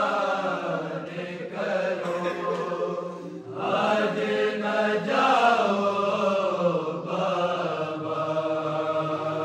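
A group of men chanting an Urdu noha (Shia lament) unaccompanied, in long drawn-out melodic phrases with short breaks for breath.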